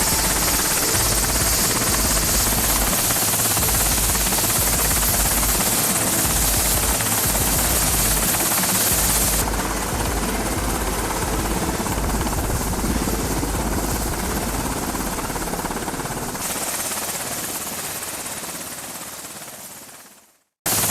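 Helicopter flying: rotor and turbine noise, a loud steady wash over an uneven low beat of the blades. The sound changes character about nine and sixteen seconds in, then fades out to silence just before the end.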